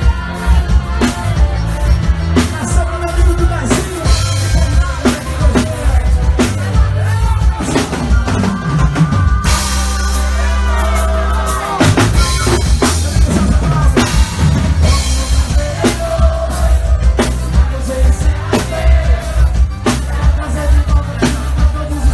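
Live forró band music with a steady drum-kit beat, bass and melody. About ten seconds in, the beat stops briefly for a held bass note under a cymbal wash, then picks up again.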